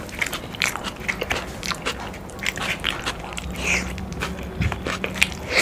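Close-miked chewing of a mouthful of food, with frequent small mouth clicks throughout.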